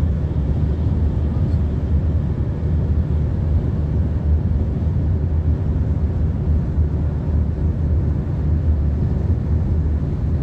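Steady low rumble of road and engine noise heard inside the cabin of a vehicle moving along a highway.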